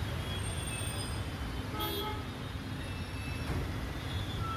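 Traffic in a jam of cars, auto-rickshaws and trucks: a steady low engine rumble with a few short horn toots, the clearest about two seconds in.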